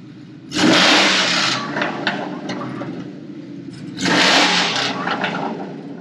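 Supercharged Ford 5.0 V8 in an F-150 idling, then revved hard twice through open header exhaust cutouts, about three and a half seconds apart. Each rev drops back with a few sharp pops.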